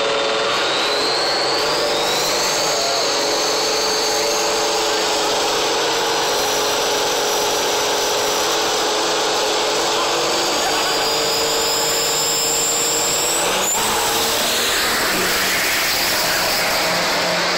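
Triple-turbocharged diesel engine of a Ford Mustang drag car revving hard, loud and steady, with a high turbo whistle. The whistle climbs over the first couple of seconds, holds, then climbs again and cuts off about 13½ seconds in as the car launches and pulls away down the strip.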